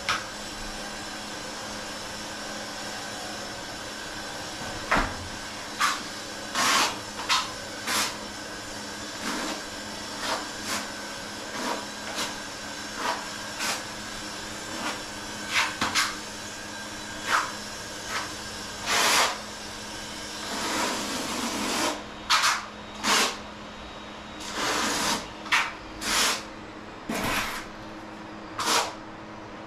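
Hand trowel scraping and spreading tile mortar on a floor: a run of short, irregular scrapes, more frequent and longer in the second half, over a steady machine hum.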